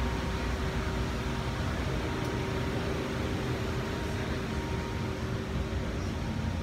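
A motor running with a steady hum and a thin high whine over it.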